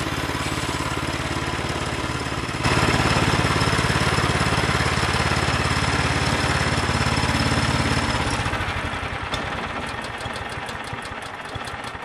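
Woodland Mills portable bandsaw mill's gas engine running, suddenly louder about two and a half seconds in. About eight seconds in it is shut off and winds down, fading, its pulses slowing.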